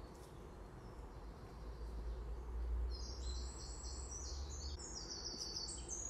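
A small songbird singing: quick runs of high, short repeated notes in stepped phrases, starting about three seconds in. A low rumble sits underneath in the first half.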